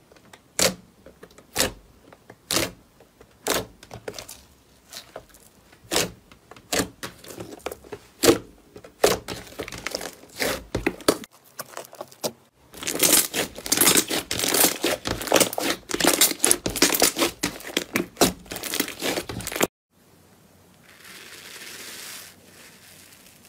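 Hand-played slime making crisp popping clicks as air pockets are squeezed, about one a second at first, then a dense run of crackling pops. After a sudden stop, a softer fizzing crackle follows as a hand presses into bubbly slime.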